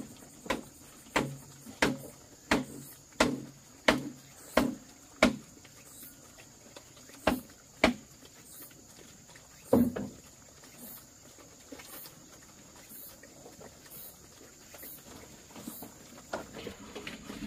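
A run of eight sharp knocks, about three every two seconds, like repeated strikes of a tool on wood, then three more spaced-out knocks, with a faint steady high tone behind.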